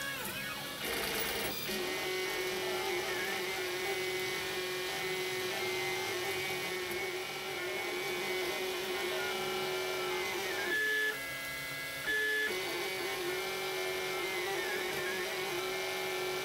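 3D printer with a Flex Wheel extruder printing flexible filament onto a mask, its stepper motors whining as the print head moves. The pitch dips and shifts with each move. About two-thirds of the way through there is a louder, steadier whine for about a second and a half.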